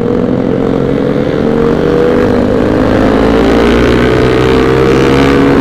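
Yamaha Byson single-cylinder motorcycle engine and exhaust running at nearly steady cruising revs under the rider, with a rushing noise of air over the microphone.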